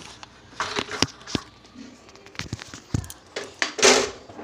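Aluminium pressure cooker lid being fitted and closed: a series of light metal clicks and knocks, with a louder, longer scrape near the end.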